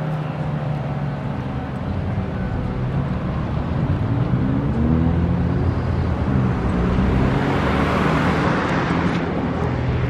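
Road traffic: running vehicle engines, with a vehicle passing by and growing louder around eight seconds in.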